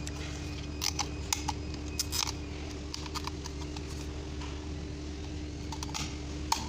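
Scattered short clicks and taps, like hand tools and small parts being handled during work on a car, over a steady low hum.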